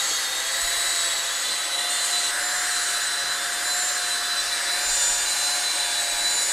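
Cordless half-inch drill on low speed running steadily, turning a small mixing paddle through thin drywall taping mud: an even motor whine over a hiss that holds one pitch throughout, the drill spinning the paddle without strain.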